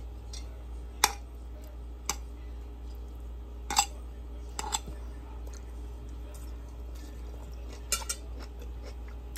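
A metal fork clinking against a ceramic plate, about half a dozen short, sharp clinks a second or more apart.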